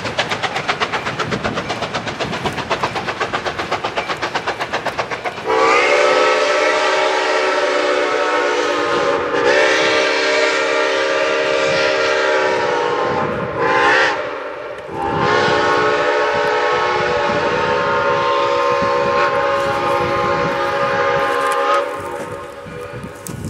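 ALCO 2-8-0 Consolidation steam locomotive No. 60 working away with a fast, even exhaust beat, then sounding its steam whistle. The whistle gives two long blasts, a short one and a final long one, the pattern of the grade-crossing signal.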